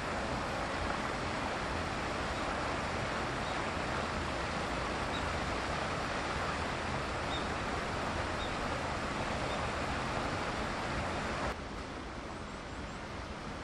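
Steady outdoor rushing noise with no distinct events. Near the end it drops suddenly to a lower level.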